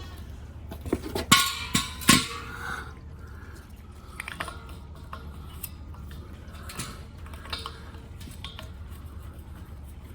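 Metal clanks and clicks from handling a propane tank and connecting the grill's gas hose fitting to it: three sharp knocks between about one and two seconds in, then lighter scattered clicks, over a low steady rumble.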